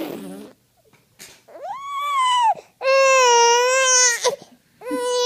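A four-month-old baby's voice: three long, high-pitched vocalizations, the first arching up and down in pitch, the next two held fairly steady, the middle one the longest.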